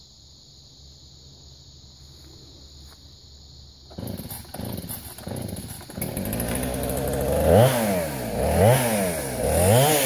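Chainsaw starting about four seconds in and sputtering for a couple of seconds. It then runs steadily and is revved up and back down three times near the end.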